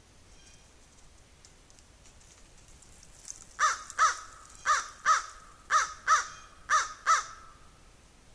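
Crow cawing: eight harsh caws in four quick pairs, starting about three and a half seconds in.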